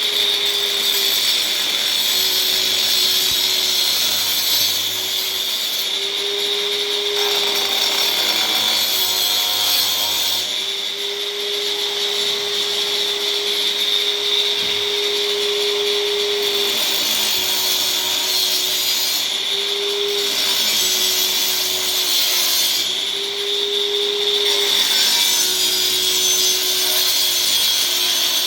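Angle grinder running without a break: a steady motor whine that dips slightly in pitch and recovers several times as the load on the disc changes, over a gritty grinding hiss that swells and fades.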